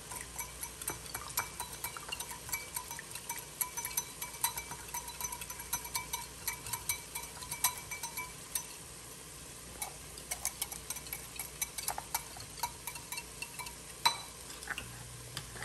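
Wire whisk beating tomato paste into beef broth in a glass bowl: rapid, uneven clicking and tapping of the metal wires against the glass, with a short pause about halfway.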